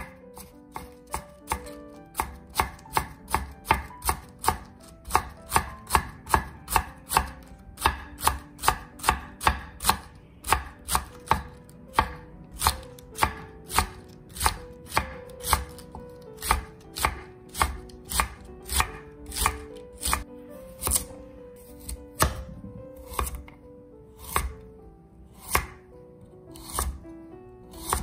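Chef's knife slicing cabbage into thin shreds on a wooden cutting board, then a carrot near the end: a steady run of sharp knocks on the board, about three a second at first, slowing later.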